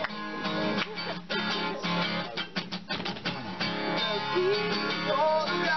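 Acoustic guitars strumming, with a run of sharp percussive strokes near the middle and a male voice singing along in the second half.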